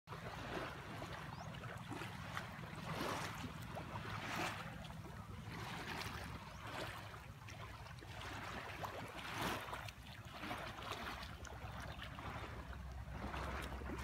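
Water splashing and washing against a small boat's hull as it moves along the lake shore, in repeated swells every second or two over a steady low rumble.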